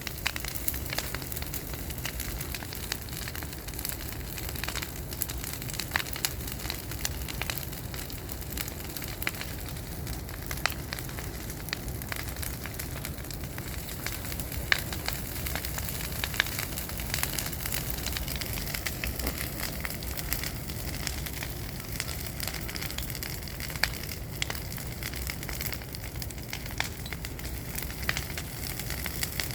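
Bonfire of burning wood, with a steady rush and frequent sharp crackles and pops scattered throughout.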